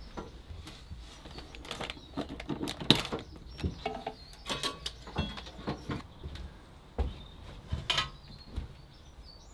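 Scattered light clicks and knocks of handling, the sharpest about three seconds in.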